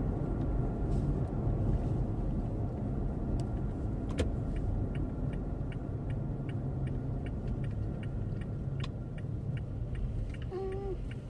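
Steady low road rumble of a car driving, heard from inside the cabin, with a light, regular ticking of about two a second through the middle.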